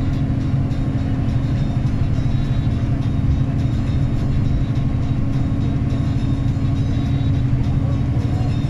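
Steady engine and road rumble of a moving vehicle, heard from inside its cabin while cruising at an even speed.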